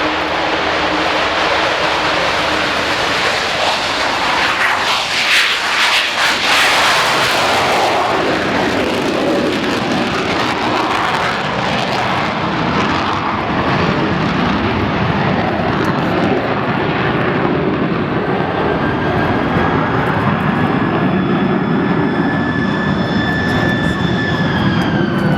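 Avro Vulcan bomber's four Rolls-Royce Olympus turbojets at full take-off power, a loud jet roar. In the second half the Vulcan howl, high steady tones, sounds above the roar, then slides down in pitch near the end as the engines are throttled back after take-off.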